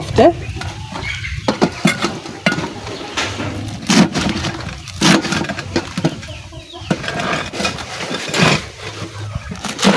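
Knife chopping fresh spinach on a board: irregular sharp knocks, a second or more apart, over a low steady rumble.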